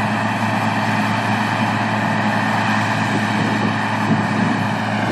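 Massey Ferguson 27 combine harvester running steadily: an even engine drone with machinery noise over it, holding a constant level and pitch.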